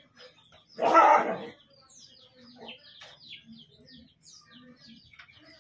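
A dog gives one loud bark about a second in, lasting under a second. Small birds chirp repeatedly throughout.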